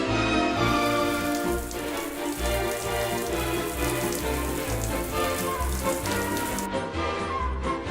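Steady rain falling, a dense hiss layered over background music, starting about half a second in and cutting off abruptly near the end.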